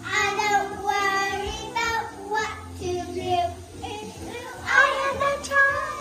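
Group of young children singing a song together.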